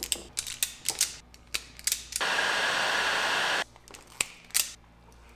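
Self-adjusting wire strippers clicking and snapping as they strip a thin wire, a quick run of sharp clicks for about two seconds. Then comes a steady blowing noise with a low hum that lasts about a second and a half, followed by two more clicks.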